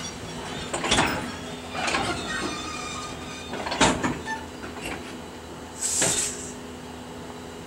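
JR 311 series electric train at the platform giving a few heavy metallic clanks, two pairs about a second apart, and a short burst of air hiss about six seconds in, over a steady electric hum.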